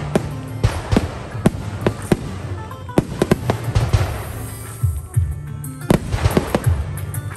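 Aerial fireworks shells bursting in quick succession: a string of sharp bangs about twice a second, with crackling a few seconds in. Music plays underneath.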